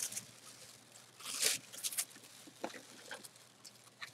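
Rustling and crinkling of a jersey and its packaging being handled and unfolded, in short scattered bursts with a few soft clicks, the loudest rustle about a second and a half in.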